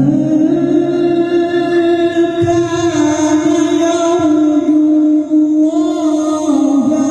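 A male Qur'an reciter's voice holding one long, melodious drawn-out note in a melismatic recitation style. The pitch stays nearly level, with small turns about four seconds in and again near the end.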